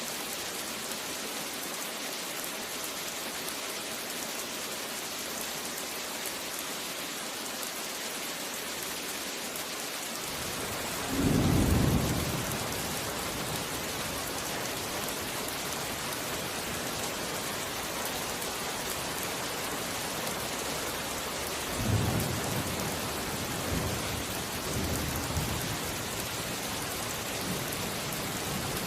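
Steady heavy rain with thunder: a loud low rumble of thunder about eleven seconds in, and a weaker run of rumbles in the second half.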